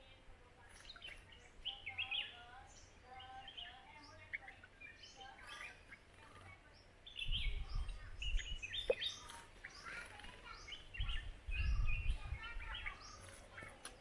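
Red-whiskered bulbuls calling: a stream of short chirping notes, several birds overlapping. Two stretches of low rumble come in, about seven and about eleven seconds in, louder than the calls.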